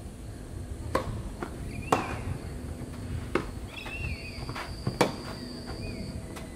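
Tennis rally: racquets strike the ball, with sharp knocks about every one and a half seconds, the loudest about five seconds in, and lighter ticks from the ball bouncing and shoes on the court in between.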